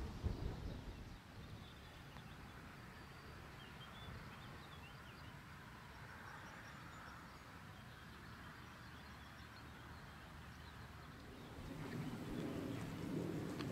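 Faint, scattered bird chirps over quiet outdoor background noise. A low rumble dies away in the first second, and another low rumble grows louder near the end.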